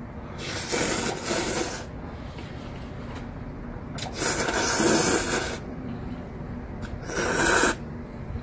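A man slurping instant ramen noodles into his mouth, three long slurps: two of about a second and a half and a shorter one near the end.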